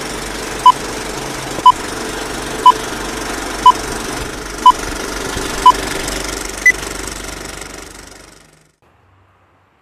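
Short electronic beeps, one a second, seven in all, the last one higher in pitch, like a countdown. They sound over a steady mechanical-sounding noise that fades away about a second before the end.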